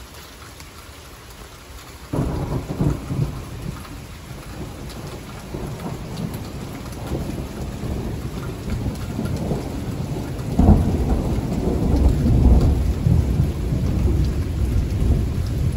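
Steady rain falling. About two seconds in, a close thunderclap breaks into a long, low rumble, which swells louder again about two-thirds of the way through.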